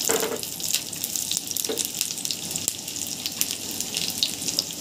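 Slivered almonds sizzling and crackling steadily in hot ghee in a nonstick frying pan, with a dense run of tiny pops from the frying.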